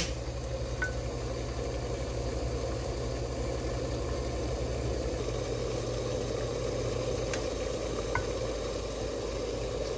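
Water boiling steadily in a pot under a bamboo steamer, a steady bubbling hiss. A low hum underneath fades out about halfway through.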